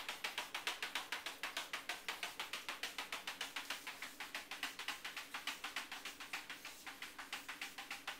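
A cat's claws scratching rapidly and repeatedly at a refrigerator door, about seven quick strokes a second.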